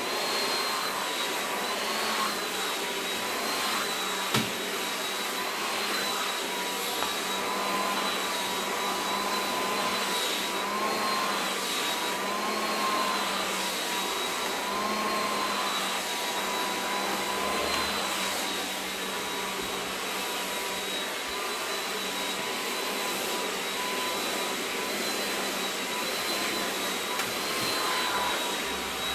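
Hot-air blow-dry brush running steadily: a rushing blower with a high motor whine that wavers slightly in pitch. A single sharp click about four seconds in.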